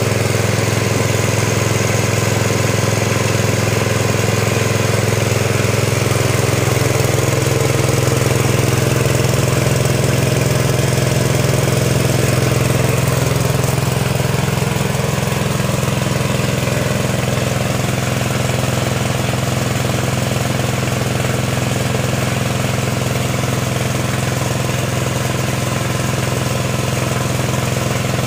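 Small single-cylinder petrol engine running steadily, driving a winch through a belt, gearbox and chain while the drum winds in steel cable.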